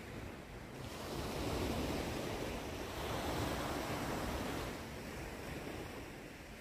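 Sea waves washing onto the beach, swelling twice and easing off, with wind in the background.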